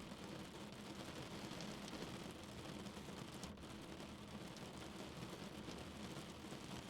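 Steady rain falling on a car, a continuous hiss of drops with faint scattered taps on the body and glass.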